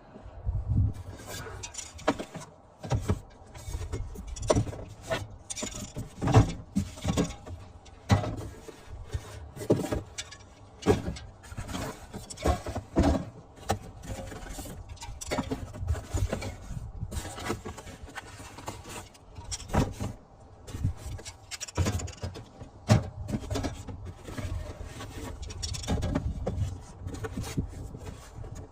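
Irregular knocks, clinks and rustling of unpacking by hand: spray paint cans and their packaging being lifted, set down and moved about.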